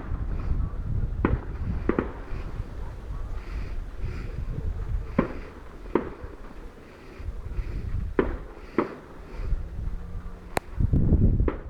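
Fireworks going off: a string of about seven sharp, separate bangs a second or more apart, over a steady low rumble.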